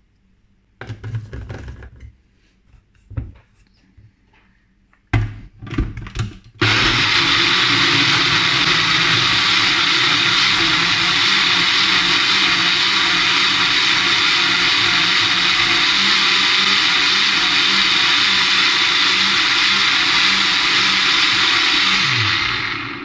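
Sencor Nutri Blend 1000 W personal blender: a few knocks and clatters of the plastic cup being handled, then the motor starts abruptly about six and a half seconds in and runs steadily, blending a strawberry fruit smoothie. The motor winds down with a falling pitch just before the end.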